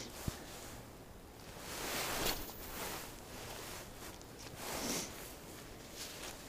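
Faint whirring and rustling of a spinning reel being cranked to retrieve line, with glove and clothing handling noise and one sharp click just after the start.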